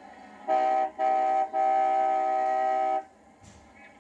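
Car horn honked in two short blasts, then held for one long blast of about a second and a half.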